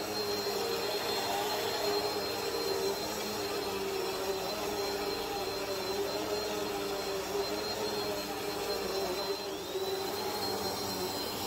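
Upright bagless vacuum cleaner running with a steady motor whine, its pitch wavering slightly as it is pushed back and forth over a wool rug to pull out dog hair.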